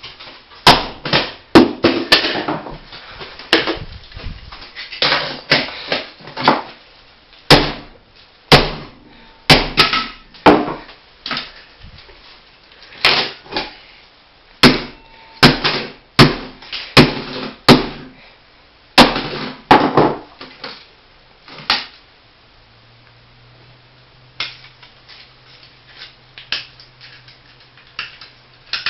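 Floppy disk drive's metal casing clattering and knocking in a rapid, irregular run of sharp hits as it is worked at to free a jammed floppy disk that will not eject. The knocks stop about two-thirds of the way through, leaving only a few light clicks.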